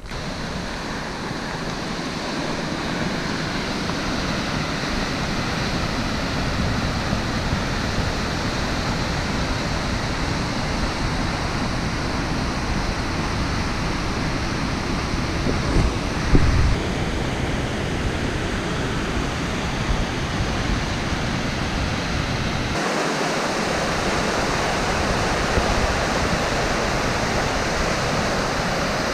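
Steady rush of a river's whitewater rapids and waterfall, its tone shifting slightly twice. A brief low thump comes about halfway through.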